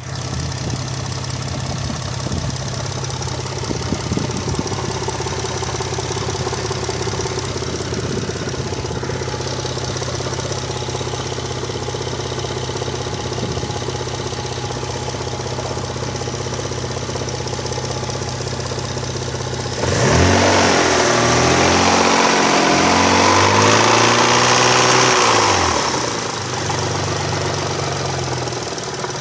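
Mitsubishi 6A13TT twin-turbo V6 idling cold with a knock, which the owner hears only until the engine is fully warm and places somewhere in the valley between the cylinder heads. About twenty seconds in it is revved up and down for several seconds, then drops back to idle.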